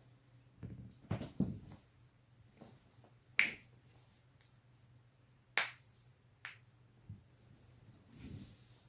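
Spinal joints being cracked: shifting and rustling about a second in, then two loud, sharp pops a couple of seconds apart, followed by a few fainter pops.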